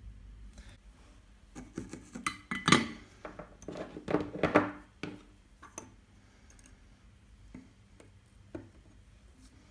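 Light clinks and taps of small metal tools and parts being handled at a soldering bench: a busy cluster in the first half, loudest twice, then a few scattered ticks.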